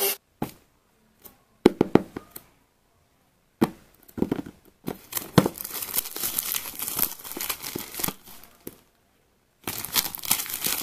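Clear plastic shrink wrap being torn and peeled off a smartphone box, crinkling. A few short rustles and taps come in the first four seconds, then a long stretch of crinkling from about five to nine seconds, and more starts again near the end.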